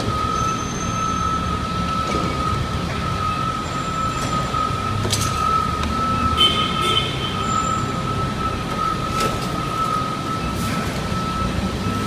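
Heavy diesel equipment running: a steady low engine rumble with a constant high whine above it, and a few sharp clicks about five and nine seconds in.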